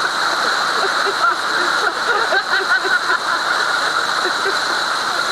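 Rushing, churning water of a boat's wake, with voices over it.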